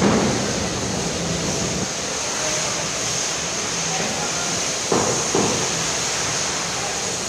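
Steady hubbub of a large crowd in a wide open courtyard, a dense rush of many distant voices and movement, with two brief knocks about five seconds in.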